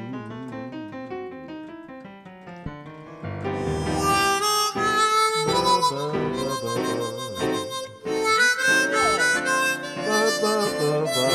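A keyboard plays a quiet run of single notes, then about three seconds in a harmonica comes in loud and plays a melodic instrumental line over the keyboard.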